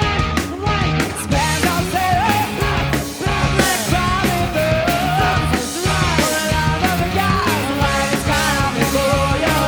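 Live punk-rock band playing loudly, with distorted guitars, bass, drums and vocals.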